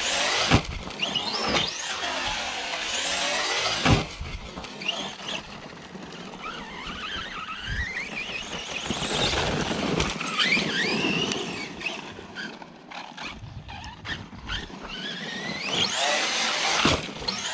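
Arrma Outcast 4S V2 RC truck's brushless motor whining as it revs up and down over and over, over a haze of tyre and gravel noise. A few hard thuds break in, the loudest just after the start and about four seconds in, with another near the end.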